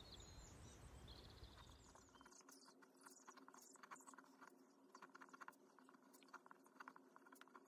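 Very faint handwriting: a fountain pen's nib scratching and ticking on paper in short strokes, starting about two seconds in, over a faint steady hum.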